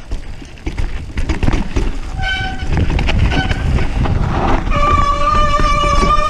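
Mountain bike brakes squealing on a descent: two short squeals about two and three seconds in, then a steady high squeal from about five seconds in, over the rumble of tyres on the trail.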